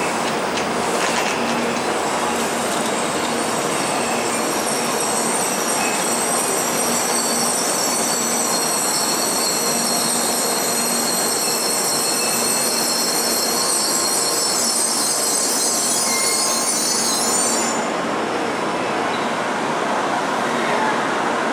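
Shinkansen train noise at a station platform: a steady loud din with several high-pitched squealing tones over it that cut off abruptly near the end.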